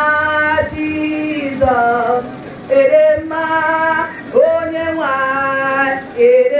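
A woman singing into a handheld microphone in held phrases about a second long with short breaks between them, a lower sustained part running beneath for the first few seconds.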